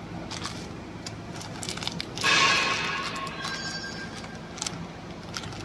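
Clear plastic-film pouches filled with powder crinkling and rustling as they are picked up and handled. The rustling is loudest about two seconds in, over a steady low hum.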